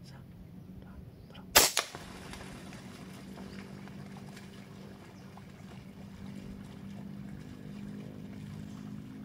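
A single air rifle shot: a sharp crack about one and a half seconds in, followed a split second later by a second, weaker crack. A steady low hum continues under it.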